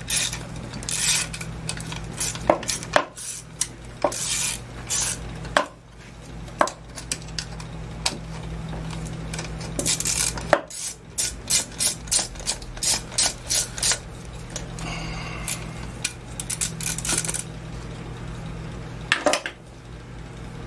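Metal hand tools and small engine parts clinking and rattling against a two-stroke chainsaw engine as it is worked on by hand, with a quick run of clicks about two-thirds of the way through, over a steady low hum.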